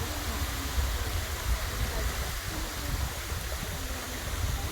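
Steady rushing of a waterfall pouring into a mountain lake, with wind buffeting the microphone in low rumbles and faint distant voices.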